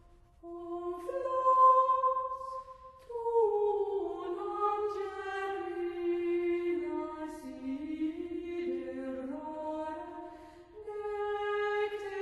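Slow sacred choral music: several voices hold long sustained notes in harmony, changing chord every few seconds, with a brief breath-like pause near the end.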